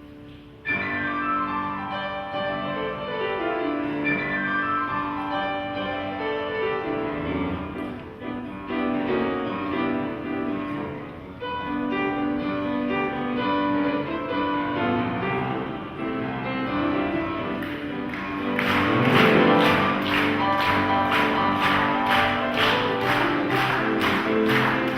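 Instrumental music with sustained piano and string-like notes. About three-quarters of the way in it grows louder and a steady beat of sharp strikes comes in, about two a second.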